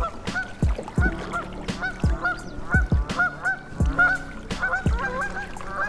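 Background music with a steady beat: deep booming kick drums, a held bass line, crisp hi-hat ticks and a short repeating honk-like synth melody.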